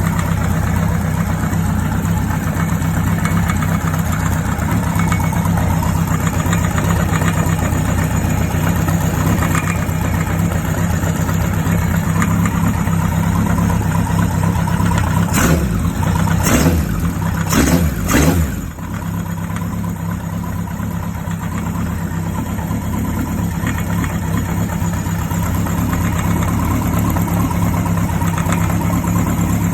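Kawasaki KZ900's air-cooled inline-four engine idling steadily with an abnormal mechanical noise that the owner says has not stopped even after a tappet (valve clearance) adjustment. About halfway through the throttle is blipped about four times in quick succession before the engine settles back to idle.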